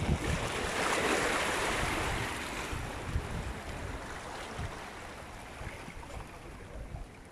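Sea water washing and splashing against the boulders of a rock breakwater, with wind buffeting the microphone. The wash swells over the first couple of seconds and then slowly dies down.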